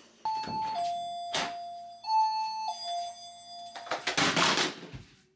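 Door-alarm chime of a caregiver alert monitor: a two-tone ding-dong, high note then a lower one, sounding twice. This is the signal that the guarded door has been opened. About four seconds in there is a short burst of noise.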